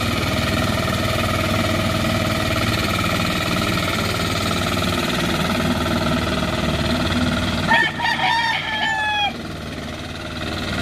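Hand tractor's small engine running steadily while it drags a pagong (turtle) tiller through very soft paddy mud. Near the end a rooster crows once, about a second and a half long, and the engine then sounds fainter for about a second.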